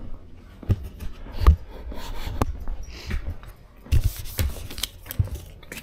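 Footsteps on a concrete floor, irregular thumps about once a second, mixed with rubbing and clicking of a handheld camera on a selfie stick.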